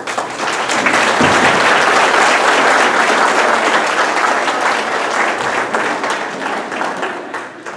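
Audience applauding, swelling about a second in and tapering off near the end.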